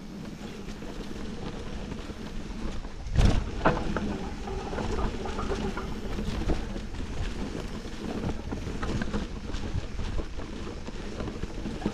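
Mountain bike rolling along a dirt forest trail: steady tyre-on-ground rumble and rattle with wind on the microphone, and two loud knocks just over three seconds in as the bike jolts.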